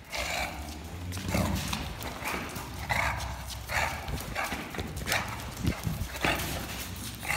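English bulldog making short grunting, huffing noises in repeated bursts, roughly one a second, while playing rough right at the microphone.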